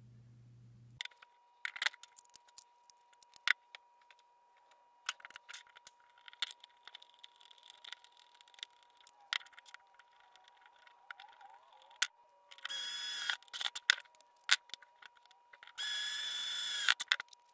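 Plastic parts of a 3D-printed PLA lathe chuck clicking and knocking as they are handled and fitted together. Near the end, a cordless impact driver runs twice for about a second each with a steady whine, driving screws into the chuck.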